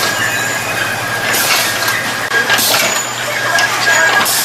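A machine running steadily with a low hum, broken by three short bursts of hissing.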